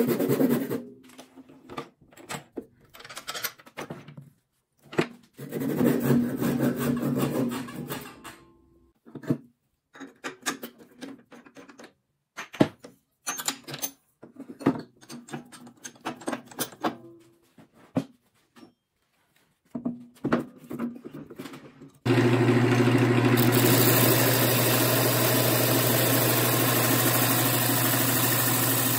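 Handsaw strokes cutting through an ash goblet's stem in two spells, then scattered clicks and knocks of metal lathe parts and tools. About 22 seconds in, a lathe-mounted disc sander starts running suddenly with a steady low motor hum, and the goblet's foot is sanded against the disc.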